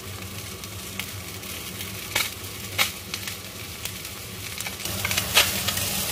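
Mandarin fish fillet sizzling in a hot nonstick frying pan, cooked without oil: a steady hiss broken by a few sharp pops, growing a little louder near the end.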